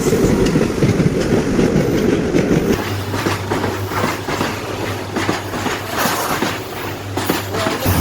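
A train running along the track, with repeated short clicks from the wheels on the rails. A steady low hum sets in about three seconds in.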